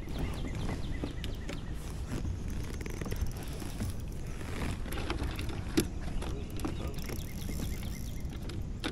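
Wind rumbling on the microphone with scattered knocks and clatter of handling on a fishing boat, the sharpest knock about six seconds in.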